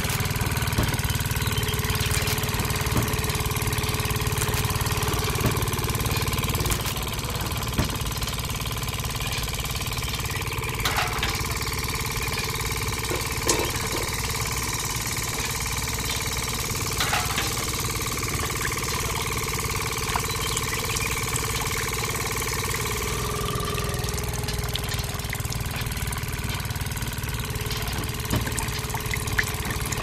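A small engine idling steadily with an even, knocking chug, plus a few light clicks and taps near the middle.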